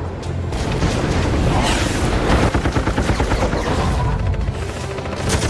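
Film battle soundtrack: music under rapid gunfire and booms, the firing densest in the middle of the stretch.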